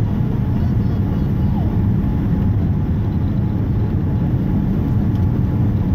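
Steady low roar of a Boeing 787-9's engines and airflow heard inside the passenger cabin during the approach descent, with a faint steady high tone running through it.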